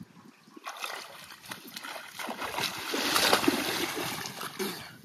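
Pond water splashing and sloshing for several seconds. It starts about half a second in, grows loudest a little past the middle, and dies away near the end.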